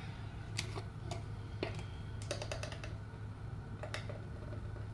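A few light clicks and taps as a spice jar is picked up, opened and handled, over a steady low hum.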